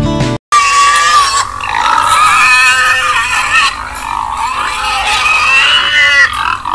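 Pig squealing: a run of high, wavering squeals that bend up and down in pitch, starting about half a second in after a brief bit of guitar music cuts off.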